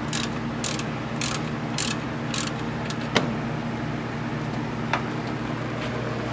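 Hand ratchet clicking in strokes about twice a second as it loosens the alternator bolt so the alternator can pivot and slacken the drive belt. The ratcheting stops about two and a half seconds in. A single sharp metallic click follows about a second later, and a lighter click comes near the five-second mark, over a steady low hum.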